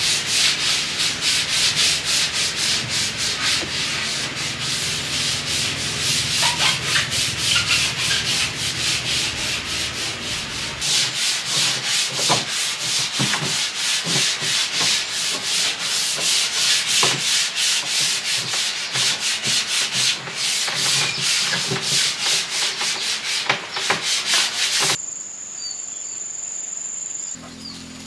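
Sanding of wooden planks: abrasive rubbing on the wood in fast, even rasping strokes, about four a second. It stops abruptly near the end, leaving a steady high-pitched buzz of insects.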